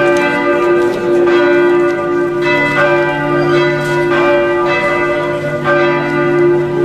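Church bells ringing: several bells struck one after another, a fresh strike every second or so, their tones ringing on and overlapping.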